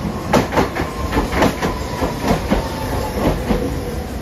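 Hiroshima Electric Railway tram rolling past close by, its wheels clacking over the rail joints, often in quick pairs, under a faint steady whine.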